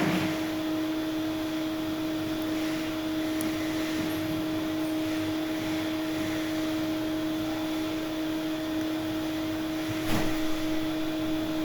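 A steady low hum made of two even tones over a faint hiss, with one short click or knock about ten seconds in.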